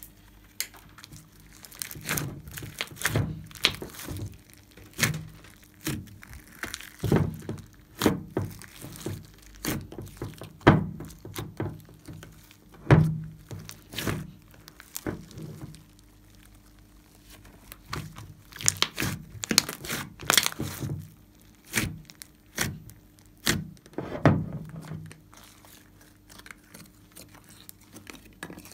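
Hands squeezing and pressing a big mass of glossy slime: irregular wet pops, clicks and squelches, a few of them sharp and loud, with short quieter pauses between bouts.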